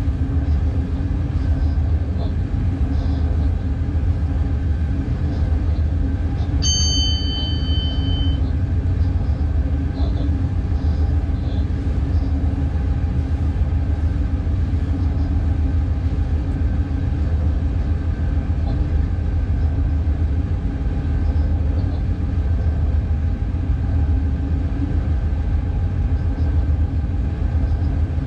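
Steady rumble and hum inside the cab of a Class 186 TRAXX electric locomotive running under way. A single high electronic beep sounds about seven seconds in and lasts under two seconds.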